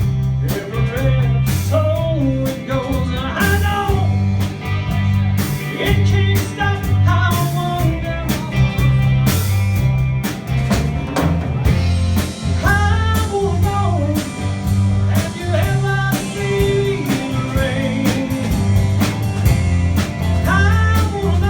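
Rock song with a sung melody over guitar, bass and a drum kit keeping a steady beat with regular cymbal hits.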